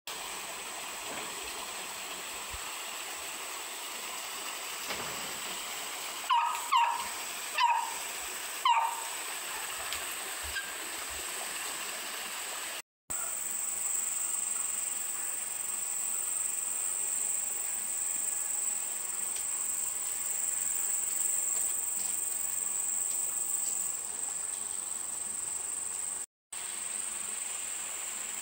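Steady high-pitched drone of insects in tropical vegetation, louder in the second half. About six to nine seconds in, four short, loud calls sound roughly a second apart. The sound cuts out briefly twice.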